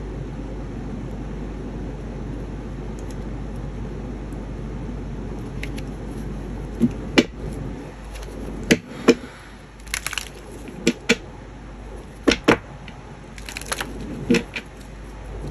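A deck of cards being shuffled by hand: a steady rustle for about six seconds, then a string of sharp taps and snaps as cards are knocked together and drawn.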